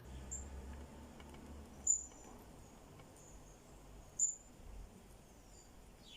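Short, high bird chirps, three of them, over faint background noise.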